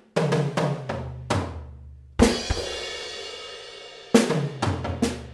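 Drum kit fills: a quick run of strokes around the toms stepping down in pitch, then a crash cymbal with bass drum about two seconds in that rings out, and another fast tom fill about four seconds in.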